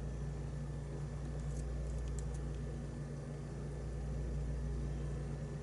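A few faint metallic clicks of a lock pick working the pins inside a challenge lock, over a steady low hum.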